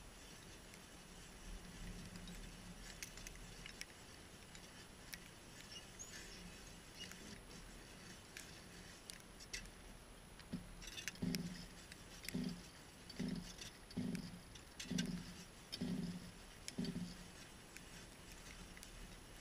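Hand ice auger being cranked down into lake ice: faint crackling and scraping of the blades cutting ice, with a run of about seven rhythmic low crunches, roughly one every 0.8 s, in the second half.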